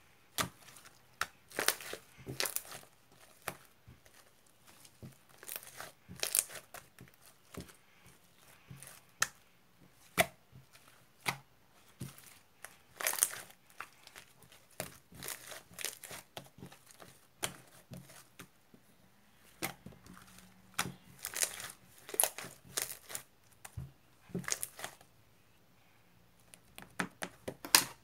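Irregular crinkling and tearing noises: many short, sharp bursts coming unevenly, with a few brief pauses.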